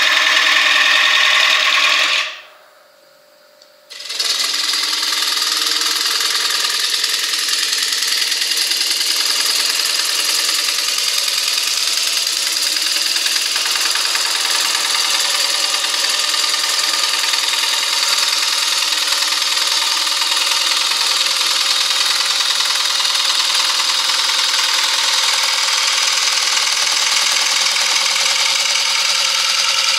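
Wood lathe running while a gouge cuts into a spinning ash bowl: a steady hiss of shavings coming off over the motor hum. The sound cuts out for about two seconds near the start, then the cutting carries on steadily.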